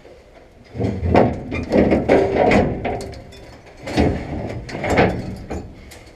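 Steel keystock grate section scraping and clanking against the combine's concave as it is worked loose. The scrapes and knocks come in a run from about a second in, then again around four and five seconds.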